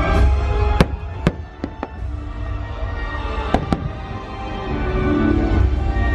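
Fireworks going off, about six sharp bangs in two bursts: a cluster of cracks between one and two seconds in and a pair near three and a half seconds. They sound over a loud show soundtrack of music with heavy bass.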